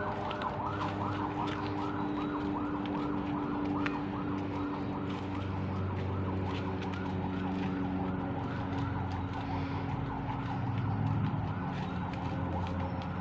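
An animal call repeated in a steady rhythm, about three or four notes a second, each note rising and falling in pitch, fading near the end. A steady low hum runs underneath.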